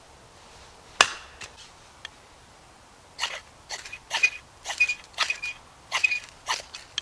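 A sharp crack about a second in, then from about three seconds a run of short rasping scrapes, about two a second, each with a faint ring, typical of a ferro rod being struck to throw sparks for a fire.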